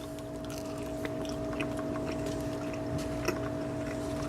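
A person chewing a chicken patty with a crunchy crust: faint, scattered small mouth clicks over a steady low hum.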